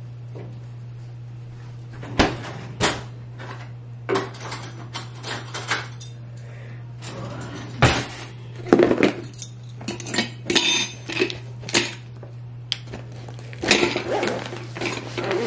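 Kitchen packing noises: containers and cutlery clinking and knocking as they are handled and put into a fabric lunch bag, a string of separate taps and clatters over a steady low hum. A zipper is pulled on the bag near the end.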